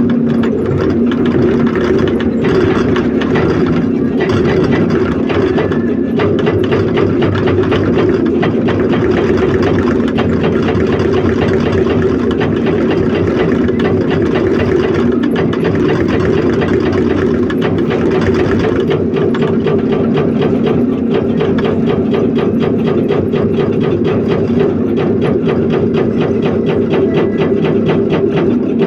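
Hydraulic rock breaker on an excavator hammering rock in a fast, even rhythm, over the steady running of the excavator's diesel engine.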